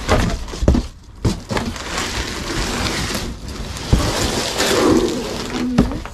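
Large cardboard packaging being pulled apart and moved: continuous scraping and rustling, with several dull thuds as the panels knock and drop.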